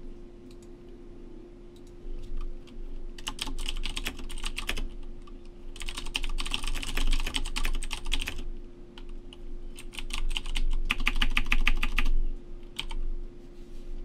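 Typing on a computer keyboard: three runs of rapid keystrokes separated by short pauses, then a few last keys near the end, over a steady low hum.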